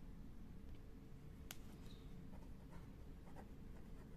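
Pen writing on ruled paper, faint scratchy strokes, with one sharp click about a second and a half in.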